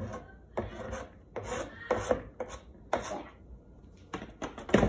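A kitchen knife scraping across a plastic cutting board, pushing crumbled feta into a bowl in a series of uneven strokes, the loudest one near the end.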